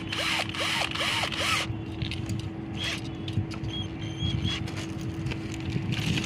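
Cordless drill motor pulsed in short trigger bursts, about five quick whirs that each rise and fall in pitch during the first second and a half, as it twists wires held in its chuck. Light clicks and handling sounds follow.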